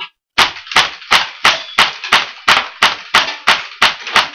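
H&K USP gas airsoft pistol fired in rapid succession: about a dozen sharp shots, roughly three a second, evenly spaced.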